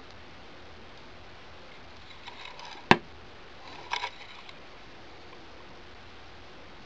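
Wooden box lid shutting with a single sharp knock about three seconds in, then a brief cluster of small clicks about a second later as the lid is lifted again.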